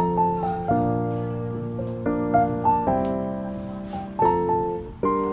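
Background piano music: chords struck one after another, each fading before the next.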